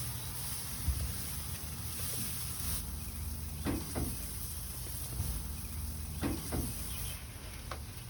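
Hamburger patties sizzling on a hot grill, a steady hiss, with two pairs of short scraping clicks in the middle.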